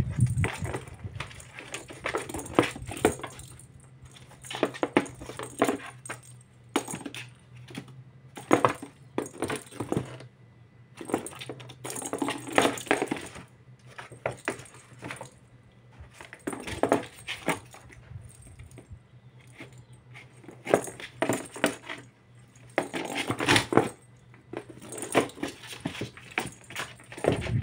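A small perforated plastic cat ball batted around a cardboard box by a kitten: irregular clatters and rattles as it knocks against the cardboard, with stretches of paws scrabbling on the cardboard floor.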